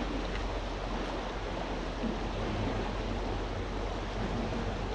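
Steady rushing of river rapids.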